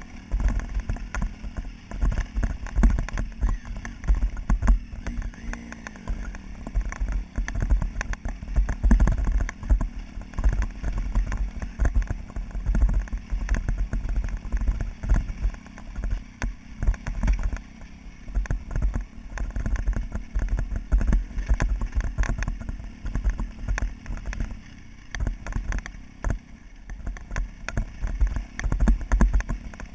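Motorcycle riding over a rough, rocky dirt track, heard from a camera on the bike: a low rumble of engine and wind, broken by a constant run of irregular knocks and rattles as the bike jolts over stones.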